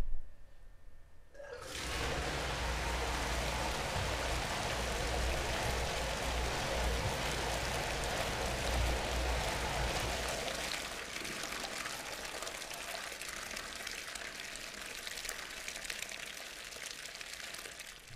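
Hot wort pouring from the brew kettle's tap into a stainless steel settling tank. The rushing splash starts suddenly about a second and a half in as the tap opens, and eases to a lighter pour after about ten seconds.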